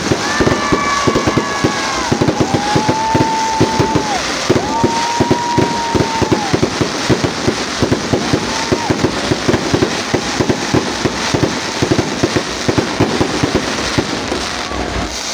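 Fireworks and firecrackers going off in a dense, rapid run of bangs and crackles. Several long whistles sound over them in the first half.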